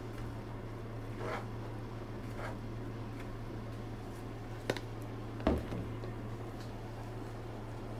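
Epoxy resin being brushed into a fibreglass channel, with a few soft brush strokes over a steady low hum. A sharp click and then a louder knock come a little past halfway.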